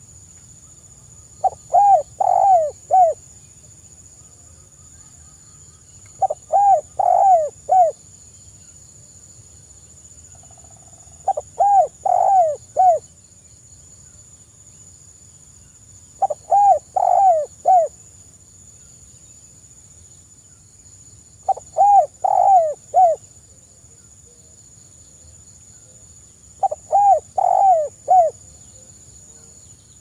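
Spotted dove cooing: six phrases about five seconds apart, each a quick run of several coos lasting about a second and a half.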